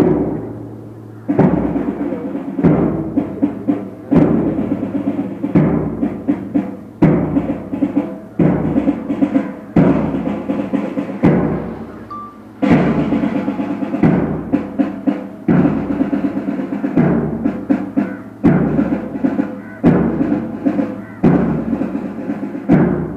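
Drum-led music with a steady heavy beat, a strong phrase of drum strokes repeating about every one and a half seconds.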